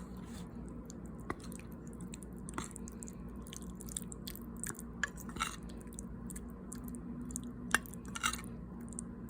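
Close-up chewing of soft cheesy beef and macaroni pasta: scattered small wet mouth crackles and clicks, the sharpest about three-quarters of the way through. A low steady hum runs underneath.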